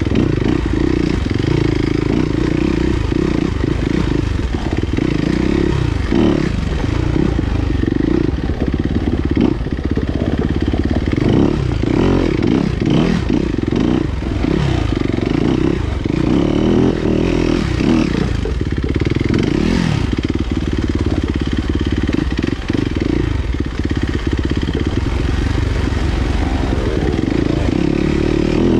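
Enduro motorcycle engine being ridden hard, its revs rising and falling over and over, with scattered knocks and rattles from the bike.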